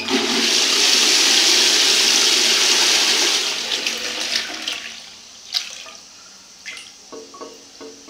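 1980s Royal Doulton Ashton toilet flushing a large load of toilet paper: a loud rush of water for about three and a half seconds that clears the bowl, then fading into the quieter trickle of the refill.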